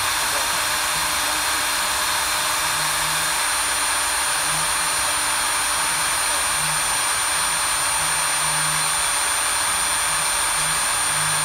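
Steady whirring hiss of a small electric motor running at constant speed, with a thin high whine over it.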